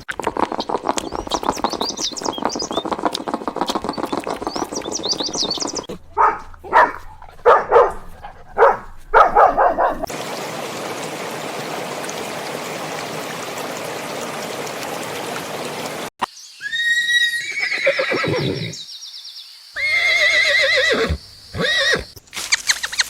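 Horses neighing: in the second half, several whinnies that fall in pitch and waver. Earlier come a run of short loud sounds and a stretch of steady hiss.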